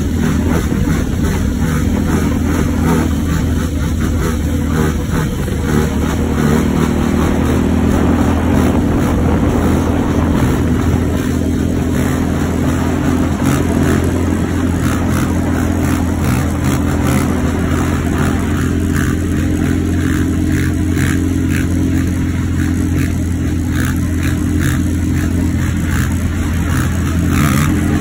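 Honda TRX450 quad's engine running loudly at a mostly steady pitch, held on the throttle, with light crackling ticks over it.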